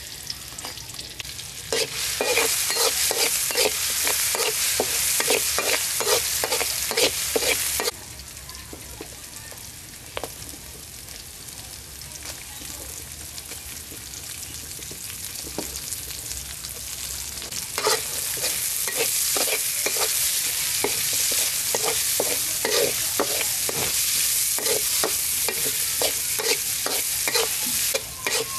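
Chopped chilies sizzling in hot oil in a steel wok, with a metal spatula scraping and knocking against the pan in quick stir strokes, about two a second. The stirring comes in two spells, with a quieter steady sizzle between them.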